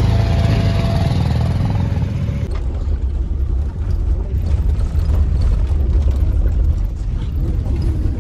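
A motor vehicle running on the road, a steady low rumble. About two and a half seconds in the sound changes abruptly to a rougher rumble with scattered clicks and knocks.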